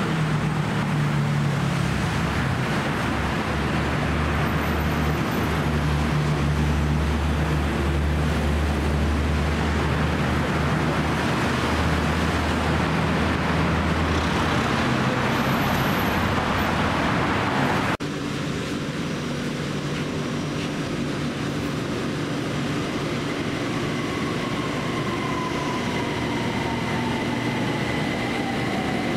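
Steady road traffic on a busy multi-lane road, with a heavy low engine rumble. About two-thirds of the way through it cuts abruptly to a BTS Skytrain station platform: a lighter hum with a steady high whine, and an electric train's whine slowly falling in pitch.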